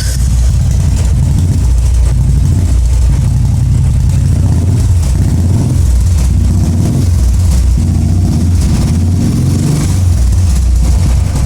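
Royal Enfield motorcycle fitted with an aftermarket Dolphin silencer, its engine running loudly and steadily just after being started, with slight rises and falls in speed.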